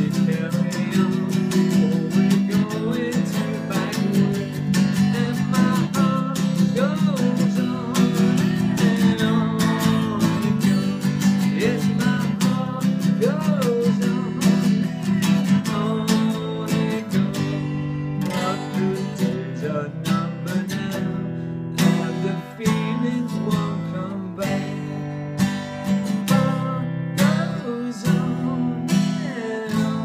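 Acoustic guitar strummed in a steady rhythm, with a man singing along.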